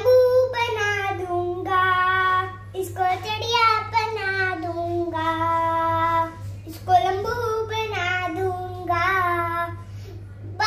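A young girl singing a song solo, in phrases with long held notes, over a faint steady low hum.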